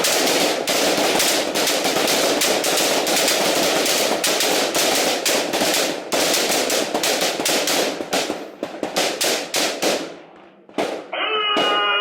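A firing line of M16-type service rifles shooting rapidly together, the shots overlapping into a continuous crackle. About eight seconds in it thins to scattered single shots, with a last couple near the end.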